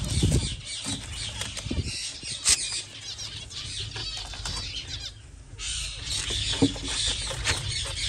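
Aviary finches chirping continuously in quick high calls with wings flapping, with a short lull about five seconds in. A few low knocks from handling in the first two seconds.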